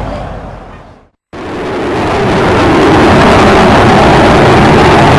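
Jet noise from the Avro Vulcan bomber's four Rolls-Royce Olympus engines as it flies overhead. The noise fades away and drops out completely for a moment about a second in, then comes back and builds over a couple of seconds to a loud, steady noise.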